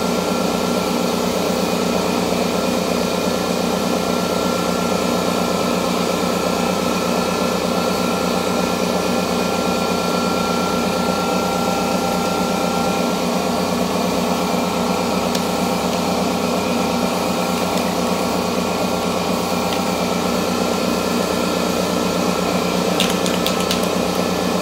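Shop air compressor running steadily with a fast, even pulsing chug, building tank pressure. It is not a quiet compressor. A few short clicks come near the end.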